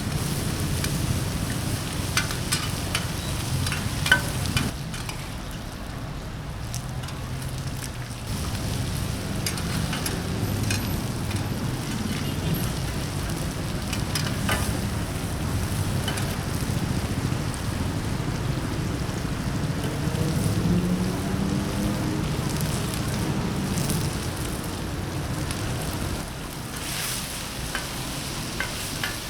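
Food frying in a hot wok at a street food stall: a steady sizzle with a few sharp clicks scattered through it.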